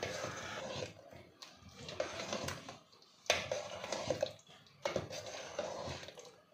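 Metal spoon stirring and scraping thick chicken curry masala in a pan while it is fried down (bhuna), in uneven swishes with a few sharp clinks of the spoon against the pan.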